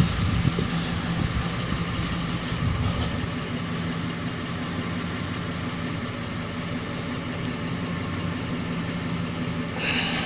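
2004 Nissan Armada's 5.6-litre V8 idling steadily, with a knock that appeared after an engine overhaul and whose cause the owner is asking about.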